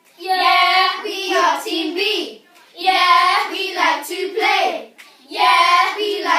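A group of boys chanting a rap vocal warm-up together in three phrases of about two seconds each, with short breaks between them.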